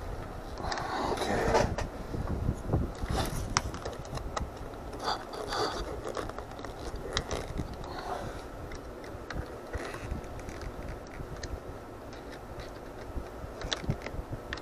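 Small screwdriver turning screws into a hard-plastic model engine's starter-motor mount, with irregular clicks, creaks and short scrapes of plastic parts being handled and tightened.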